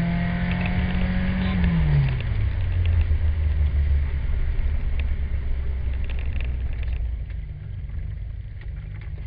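Renault Clio 1.8 16V four-cylinder engine heard from inside the car, its revs falling about two seconds in as the throttle is lifted, then running low and steady as the car slows, getting quieter near the end.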